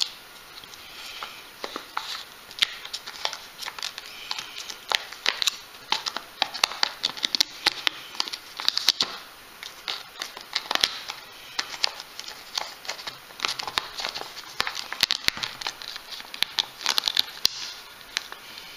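Thin plastic film crinkling and crackling in dense, irregular bursts as it is handled and peeled off a plastic tub.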